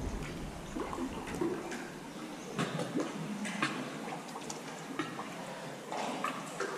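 Water dripping and splashing inside a sea cave, in irregular small drips and splashes.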